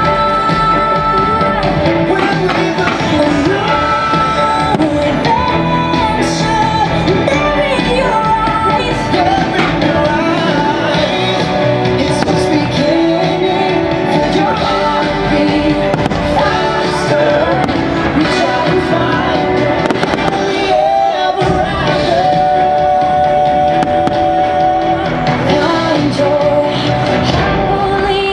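Fireworks show soundtrack music playing loud over outdoor loudspeakers, with fireworks shells bursting throughout as repeated sharp bangs and pops.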